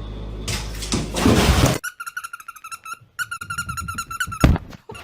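An animal's rapid high-pitched chirping calls in two runs with a brief pause between. They come after a second or two of rustling noise, and a knock follows near the end.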